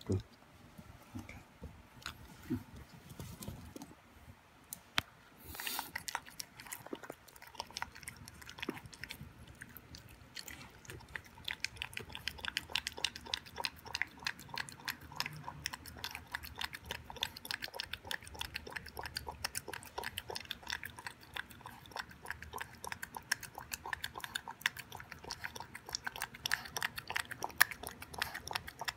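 Boston Terrier puppy eating raw beef, vegetables and yogurt from a bowl: wet chewing and mouth clicks, sparse at first, then quick and continuous from about ten seconds in.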